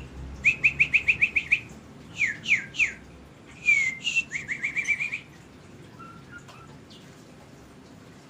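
Chinese hwamei (China thrush) calling close by: quick runs of short, clear chirps, about eight a second, broken by a few slurred downward notes. The calls stop about five seconds in.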